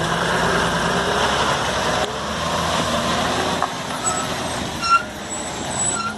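Heavy diesel engines of a truck and a backhoe loader running loudly, a little louder for the first two seconds. A sharp clunk comes about five seconds in, with a few short high squeaks near the end.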